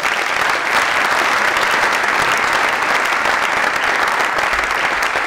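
Audience applauding: many people clapping steadily at the end of a talk.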